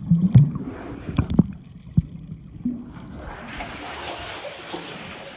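Water heard through an underwater camera microphone as a swimmer's arm moves past: a muffled low rumble with several sharp knocks. About three seconds in the microphone reaches the surface and a steady hiss of lapping water takes over.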